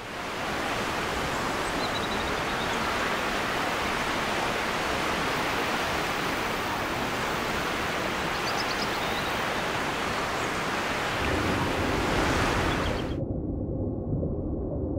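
Ocean surf: a steady rush of waves breaking on rock, fading in at the start. About thirteen seconds in the higher sounds cut off suddenly, leaving only a muffled low rumble.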